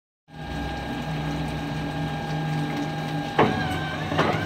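Steady mechanical whirring with a low hum around the Merlin V-12 of an unlimited hydroplane before it fires, with two sharp pops about three and a half and four seconds in.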